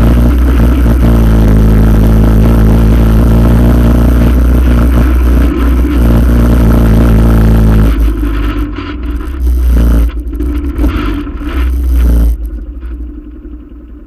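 ATV engine running steadily under throttle close to the front-rack-mounted camera, with rattle from the mount. About eight seconds in the throttle comes off, the engine picks up briefly twice, and then it drops much quieter near the end.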